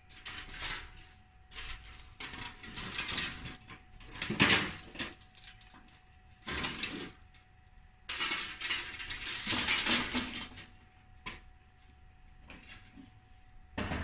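Clattering and scraping of things being handled, in irregular bursts, the loudest about four and a half seconds in and another long stretch around eight to ten seconds, with a sharp click near eleven seconds.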